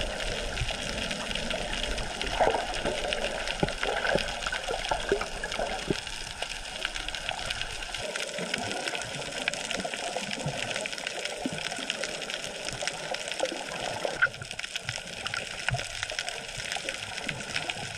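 Underwater sound of the sea around a snorkeller's camera: a muffled water rush with gurgling bubbles and many small scattered clicks and crackles.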